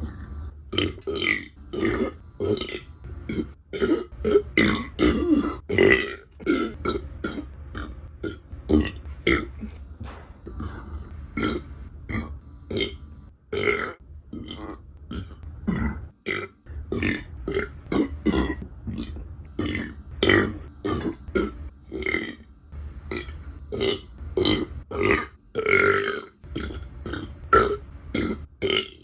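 A woman's small burps, many in quick succession, a few each second.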